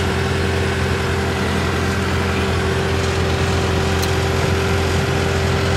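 Diesel engine of a Hitachi Zaxis 130 excavator running steadily, heard from inside the cab, with a constant low hum and a steady whine over it.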